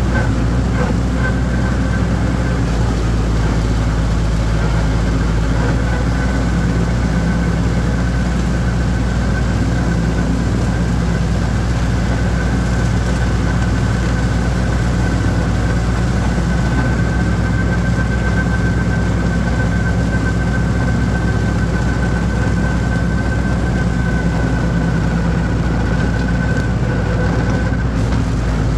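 Holder compact tractor's engine running steadily while mowing, with a steady high whine over the engine drone.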